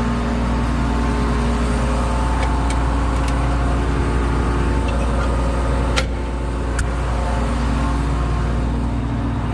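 Combine harvester's diesel engine running steadily at a constant speed, with a deep low rumble. Two short sharp clicks sound about six and seven seconds in.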